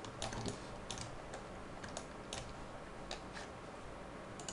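Irregular light clicking of a computer mouse and keyboard, about two or three clicks a second.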